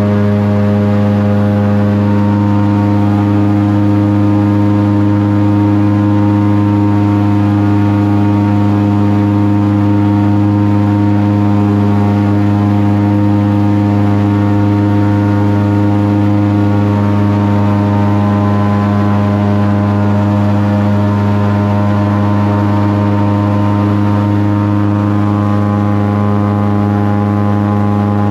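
Airboat's engine and air propeller running at a steady speed, a loud, even drone.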